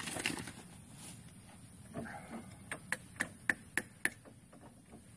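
Hammer tapping on steel: a quick run of about six sharp, ringing taps, roughly three a second, starting a little under three seconds in, followed by a few fainter taps. A brief rustle comes at the very start.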